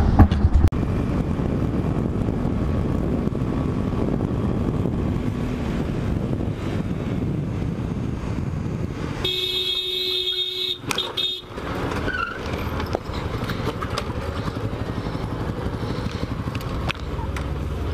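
Motorcycle riding in traffic, its engine and road noise steady on a helmet camera. About nine seconds in, a horn sounds for about a second and a half.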